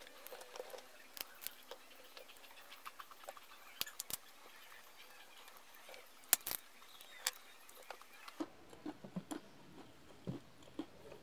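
Boiled peanuts in the shell being cracked open by hand: scattered small clicks and snaps of the damp shells, with soft chewing sounds near the end.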